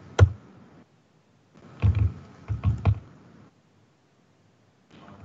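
A sharp click just after the start, then a cluster of dull knocks and clicks about two to three seconds in, from a computer mouse and the desk near the microphone. Between them are stretches of dead silence.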